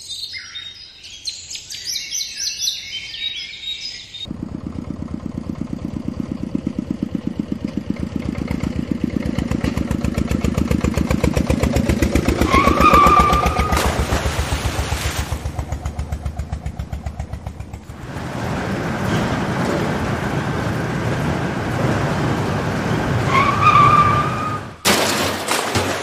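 An engine sound effect laid over toy vehicles: a running engine with a fast chugging rhythm. It starts about four seconds in, eases off briefly past the middle and picks up again. A short high tone sounds twice, and high chirping runs through the first few seconds.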